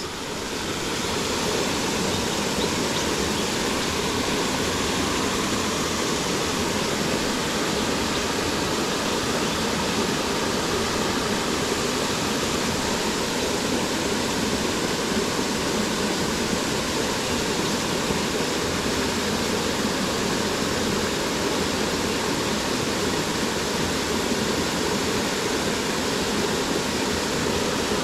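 Buderim Falls waterfall pouring, a steady, even rush of falling water.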